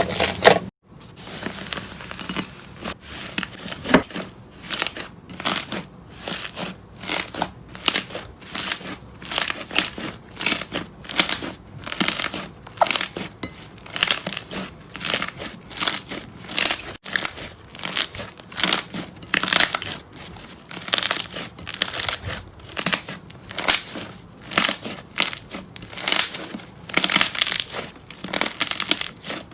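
Slime being squeezed and pressed by hand: a string of short, crinkly squishes, about one or two a second, with a brief break about a second in and another halfway through.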